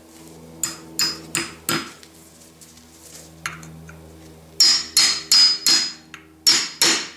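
Hammer tapping on steel parts: about eleven sharp metallic blows, each with a brief ring, a few spaced ones first and then a quicker run near the end. A faint steady low hum runs underneath.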